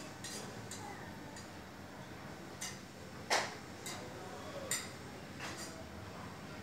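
Irregular sharp little clicks and ticks, about one every half second to a second, with one louder click a little past the middle, over a faint steady hum.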